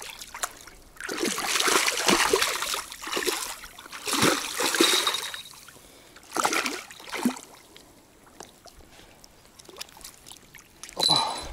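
A hooked silver carp thrashing and splashing at the surface at the water's edge as it is played in, in several loud bursts over the first seven seconds, then only small splashes.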